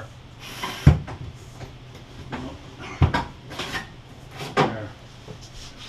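Handling noise against wooden cabinetry: rustling and scraping, with three short dull knocks at about one, three and four and a half seconds in.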